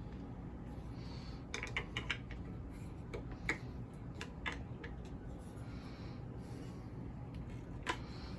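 Scattered sharp clicks and light knocks of hard statue parts being handled and tried against each other: a quick cluster about a second and a half in, then single clicks spaced out after it.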